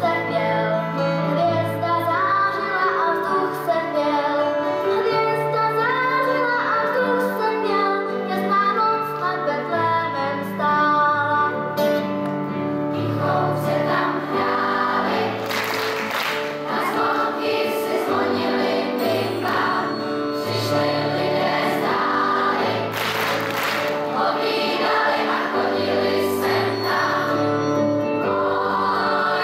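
Girls' and children's choir singing a Christmas song, with solo voices up front, accompanied by keyboard and guitars. The accompaniment grows fuller about halfway through.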